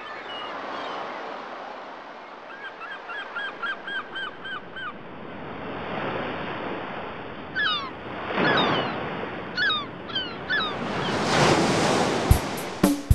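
Ocean surf washing ashore, with birds calling over it: a quick run of about ten short calls, then several falling calls about a second apart. Near the end a drum beat comes in as the music starts.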